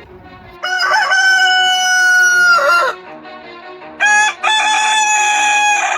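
Rooster crowing twice: a long crow held at a steady pitch starting about half a second in, then a second crow about four seconds in that opens with a short note before a long held one.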